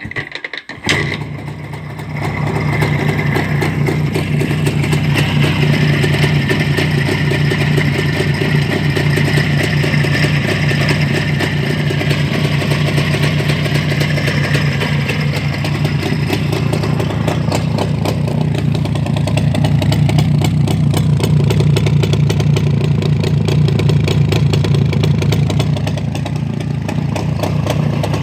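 A ČZ motorcycle's two-stroke single engine starts about a second in, then runs steadily after its repair.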